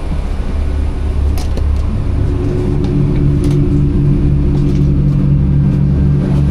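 Diesel train engine running steadily, a loud low hum that grows fuller and louder about two seconds in, with a few faint clicks.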